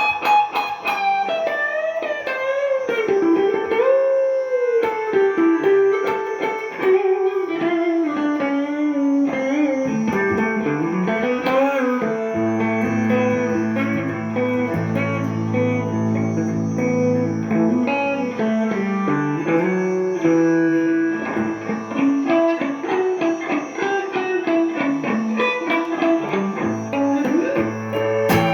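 Gibson ES-339 Custom semi-hollow electric guitar improvising a jazzy, Indian-flavoured single-note line with bends and slides that winds downward. About halfway through, low notes are held underneath the melody.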